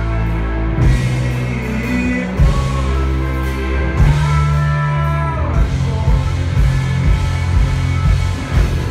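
Rock band playing live and loud, with electric guitars.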